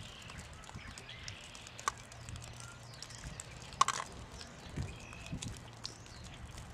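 Faint outdoor background with a low steady hum, scattered short clicks (the sharpest a little under four seconds in) and a few faint short chirps; the siren is not sounding.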